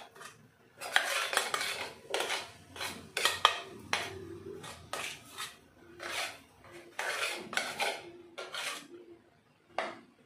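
A plastic spoon scraping and knocking around the inside of an aluminium cake tin as it is greased with ghee: a run of irregular scrapes and clinks that dies away near the end.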